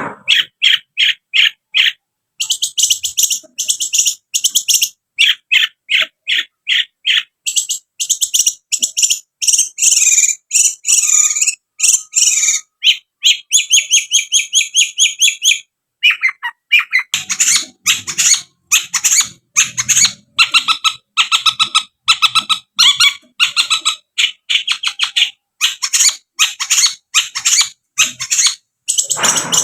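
Long-tailed shrike (cendet) singing a loud, fast string of sharp, high-pitched chirping notes, several a second, with a few short breaks.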